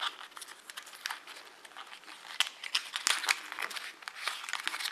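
Crinkling and crackling of packaging handled by hand: a small cardboard box holding a lighter's charging cable being opened, with many short irregular crackles and light clicks.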